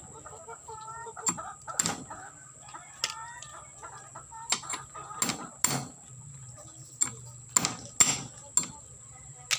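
Bolo knife striking crab claws on a wooden chopping board to crack them open: a series of sharp knocks, some in quick pairs, most of them in the second half. A chicken clucks a few times between the knocks, about a second in and again about three seconds in.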